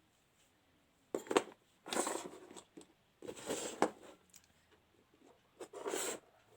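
Handling noise: four short bursts of rustling with sharp clicks, as the opened electric mosquito bat and its circuit board are moved about.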